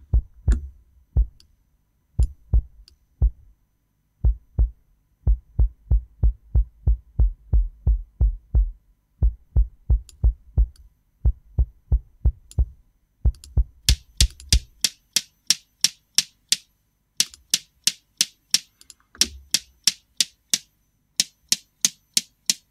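Sampled kick drum from the DS Drum RCS Essentials library, soloed and tightly gated so that each hit is a short pop that stops dead, playing a fast, uneven metal double-kick pattern. About fourteen seconds in the hits turn bright and clicky with little low end: the kick-in microphone is heard alone.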